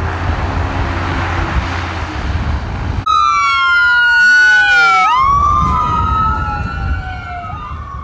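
Wind buffeting the microphone, then, about three seconds in, a sudden cut to an ambulance's electronic siren wailing loudly, its pitch sliding slowly up and down with overlapping sweeps.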